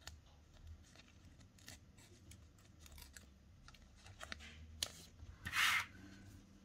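Paper and cardstock being handled: quiet crinkles and small ticks, with one louder, brief paper rustle about five and a half seconds in.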